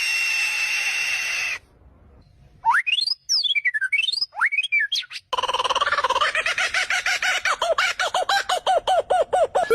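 A run of animal calls: first a steady high-pitched squeal held for about a second and a half, then whistled calls sweeping up and down, then a fast string of short repeated calls, several a second.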